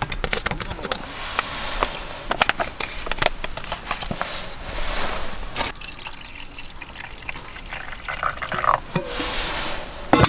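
Water poured from a stainless steel kettle into a metal mug, filling it in two long pours, after a few crinkles and clicks from a squeezed extract pouch. The kettle is set down on the table with a sharp clink near the end.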